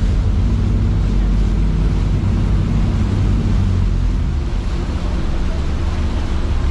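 The Wonder Naruto sightseeing ship's engine running with a steady low rumble, mixed with wind buffeting the microphone and the rushing of churning whirlpool water.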